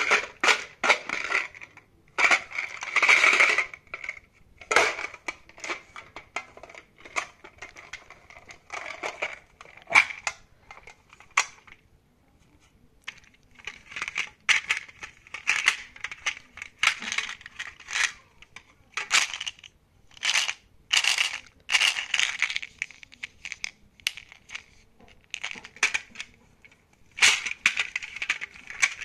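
Clicks, taps and rattles of plastic Skittles tubes being handled and set into a metal tin, knocking against its sides. The sharp clicks come irregularly, in clusters, with a short lull about twelve seconds in.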